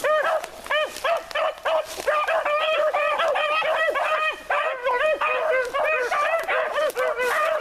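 A pack of four beagles baying together, several voices overlapping in quick, repeated calls that rise and fall in pitch.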